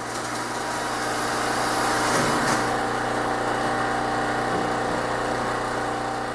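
A motor-driven machine running with a steady drone and hum.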